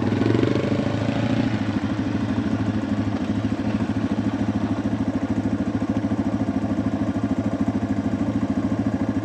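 Yamaha TW200 trail motorcycle's single-cylinder four-stroke engine running steadily at low revs, with an even fast pulsing beat.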